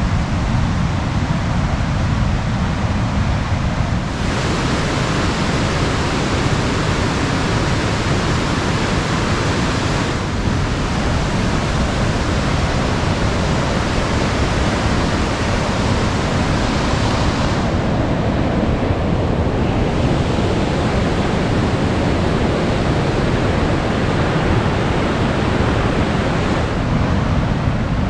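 Loud, steady rush of falling water from Niagara Falls, its tone shifting abruptly a few times.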